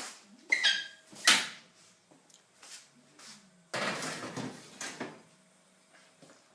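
Metal oven hardware and baking tray clattering as the tray goes into a gas oven: a short squeak and a sharp clank about a second in, then about a second of scraping rattle.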